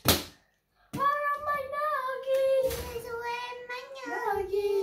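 A sharp knock, then after a short pause a child singing, holding long, slightly wavering notes.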